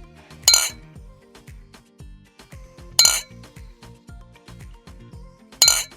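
Glass bottles clinking together three times, evenly spaced, each a sharp ring. This is typical of bottles stored in a fridge knocking together from the fridge's vibration. Background music runs underneath.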